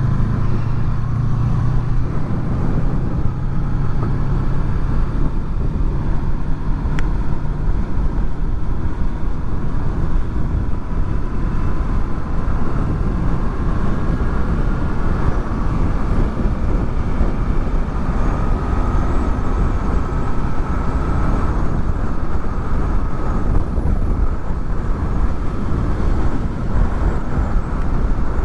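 Honda VFR800's V4 engine running on the move, under steady wind rumble on helmet microphones fitted with furry windshields. A low engine drone is strong at first and fades out over the first several seconds. The bike is new and still being run in.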